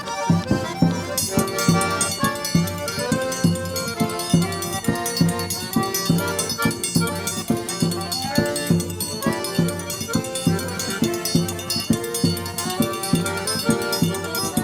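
Accordion-led traditional Brazilian folk music over a steady percussive beat. A high rattling percussion joins about a second in.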